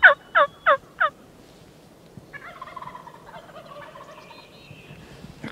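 Turkey yelping: the end of a quick run of loud, falling yelps, about three a second, stopping about a second in. A fainter, drawn-out call follows.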